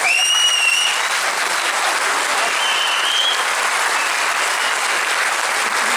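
Theatre audience applauding steadily, with two brief high whistles over the clapping, one at the start and one about halfway through.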